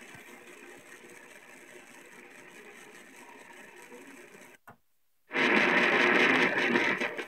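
Sony boombox AM radio tuned across the band: faint hiss for about four and a half seconds, a brief dead-silent dropout, then loud static-like noise from the speaker for about two seconds before it falls away again.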